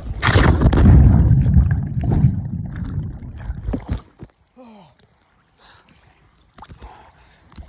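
River water splashing and sloshing close to the microphone as someone swims, loud for the first few seconds and then dying away.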